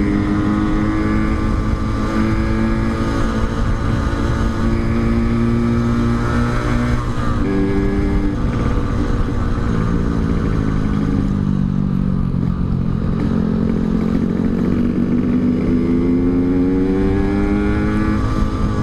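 Yamaha RX-King's 135 cc two-stroke engine running through an aftermarket Altec C20 silencer while riding, its pitch rising and falling with throttle and gear changes. Wind buffets the microphone underneath.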